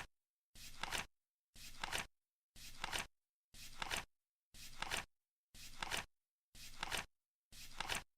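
Flip clock's flaps turning once a second, each flip a short rustle ending in a sharp click, with complete silence between flips.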